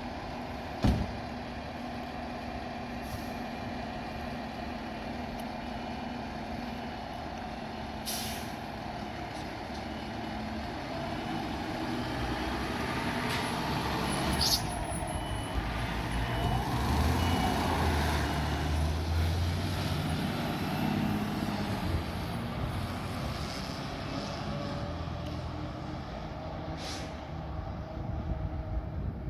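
Heavy fire truck's diesel engine running steadily, louder and rumbling for several seconds in the middle as the truck moves. Air brakes hiss sharply twice and a back-up beeper sounds faintly in the middle.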